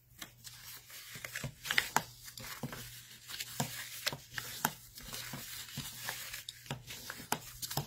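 Scored cardstock being folded along its score lines and creased with a bone folder and fingers: paper crinkling and rubbing, with many short light taps and clicks throughout.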